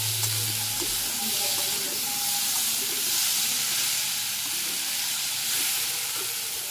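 Soya chunks, diced potatoes and peas sizzling in oil and masala in a metal kadhai, with a flat metal spatula stirring and scraping the pan.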